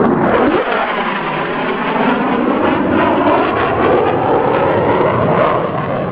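F-22 Raptor jet fighter's twin turbofan engines on a fast low pass just below the speed of sound: loud jet noise that comes up sharply at the start and holds, with sweeping, shifting tones as the aircraft goes by.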